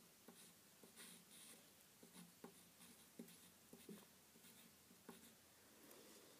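Faint scratching strokes of drawing on paper, with a few small taps of the drawing tool.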